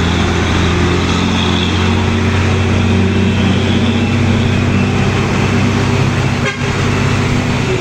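Motor vehicle engine running steadily at close range, a deep continuous hum with overtones, amid road traffic.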